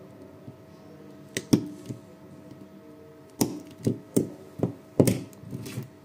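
Handheld two-pen battery spot welder firing on nickel strip against a circuit-board pad: a series of short, sharp snaps and clicks, mostly in the second half, over a faint steady hum.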